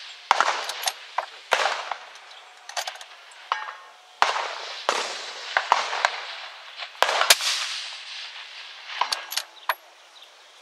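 A 6.5 Creedmoor precision rifle fires, its loudest report about seven seconds in, echoing off across the range. Quieter reports and sharp metallic clicks of the rifle being worked fall between the shots.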